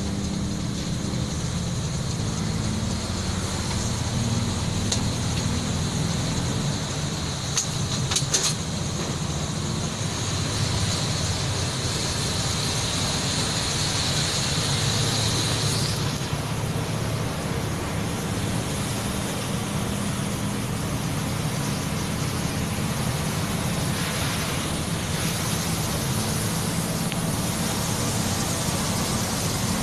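A coach's diesel engine running steadily, heard from inside the cabin over the hiss of tyres on a wet road, with a brief cluster of clicks about eight seconds in.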